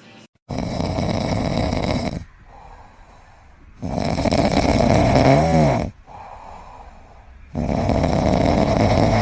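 Loud snoring: three long snores about two seconds each, coming roughly every three and a half seconds, the middle one with a wavering whistle-like tone near its end.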